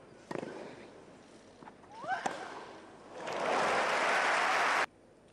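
Tennis ball struck by a racket on a grass court, with a player's short grunt on the shot: a sharp hit about a third of a second in, then a second hit about two seconds in with a shout that rises in pitch. Then the crowd applauds loudly for about a second and a half, and the applause cuts off suddenly.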